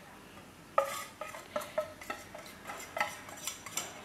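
Irregular clinking of a metal wire whisk and a glass cup against a mixing bowl as curd is added to flour, starting about a second in at roughly three or four clinks a second.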